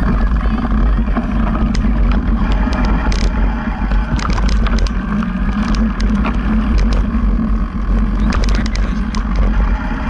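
Wind rumbling on the mic of a camera riding along on a mountain bike over a rough dirt track, with frequent sharp clicks and rattles from the bike jolting over the bumps.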